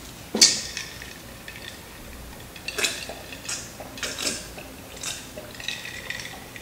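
A person drinking red Kool-Aid from a pickle jar: a sharp click about half a second in, then several short gulps and swallows.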